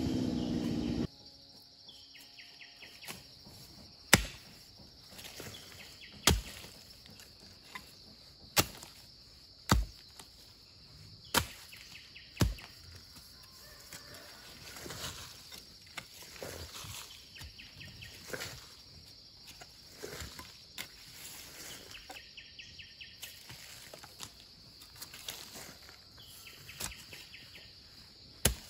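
A hoe blade chopping into dry dirt, one hard strike every one to two and a half seconds, the strongest in the first half, then softer scraping strikes. A steady high insect drone carries on behind.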